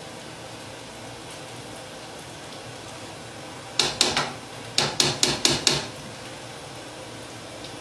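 Ladle knocked against the rim of a metal cooking pan, shaking off parboiled rice. There are about eight quick, sharp knocks in two groups, a few at about four seconds in and five more just before six seconds.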